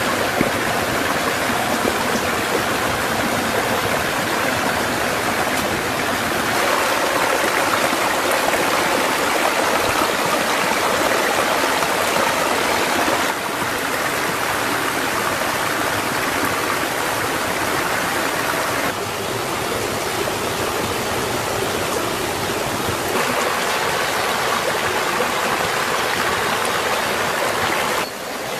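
Shallow forest stream running over rocks: a steady rush of water whose level and tone shift slightly a few times.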